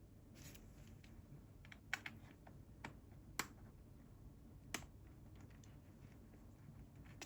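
A few light, sharp clicks and taps, about five spread between two and five seconds in, with a soft rustle near the start: plastic laptop casing being handled while the back cover goes back on.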